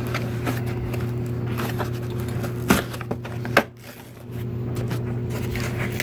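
Cardboard box being handled and pulled open by hand, with small scuffs and clicks and two sharp sounds a little under a second apart near the middle, over a steady low hum.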